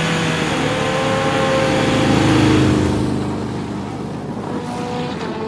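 Sport motorcycle engines revving hard as the bikes accelerate, the engine note climbing and loudest about two and a half seconds in, then fading away.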